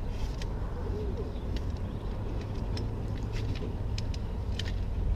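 Scattered light clicks and taps of a folding camp chair's pole frame and fabric seat being handled and fitted together, over a steady low rumble.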